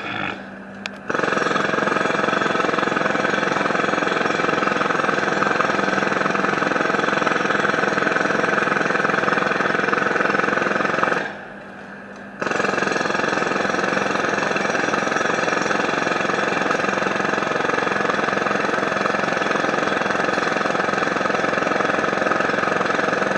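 Heavy construction machinery tearing up a street: a loud, steady mechanical din that cuts out abruptly for about a second midway, then starts again.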